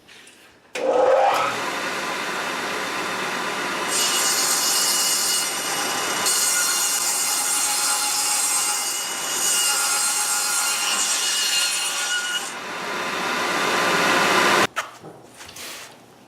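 Power tool cutting a rabbet into a wooden strip, removing the waste wood. It spins up with a rising whine about a second in, cuts steadily with a changing, rising noise, and stops suddenly about a second and a half before the end, followed by a few light knocks.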